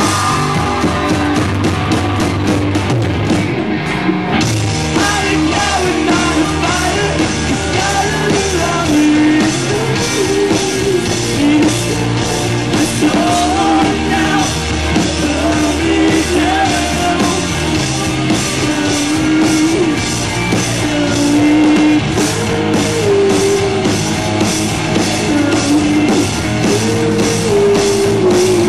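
Live rock band playing loud: electric guitars, bass and a drum kit, with a voice singing over them.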